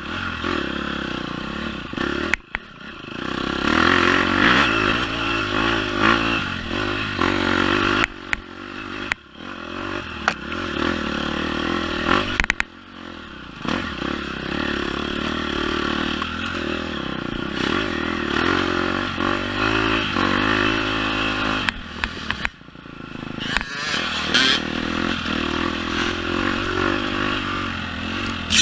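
Enduro dirt bike engine revving up and down as the rider works the throttle along a tight trail, with several brief drops where the throttle is shut off between bursts of acceleration.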